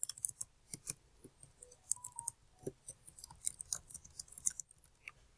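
Computer keyboard being typed on: a quick, irregular run of light key clicks.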